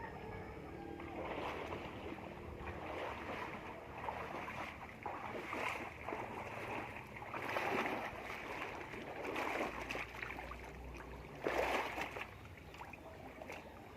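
Water splashing and sloshing in irregular bursts, with one short, louder splash near the end.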